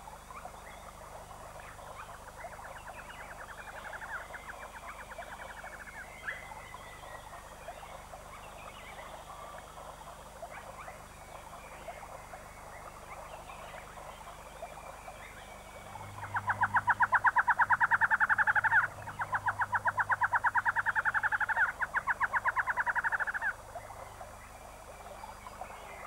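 Wild animal ambience: a soft background of chirps and calls, and a rapid, buzzy pulsed trill. The trill is faint a few seconds in, then loud for about seven seconds in the second half, with a short break.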